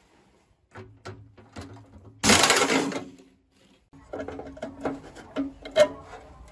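Pneumatic impact wrench firing in one short burst about two seconds in, hammering with a bright air hiss, after a few small clicks. From about four seconds in, knocks and clatter of a metal electrical box being handled against the milling machine's base.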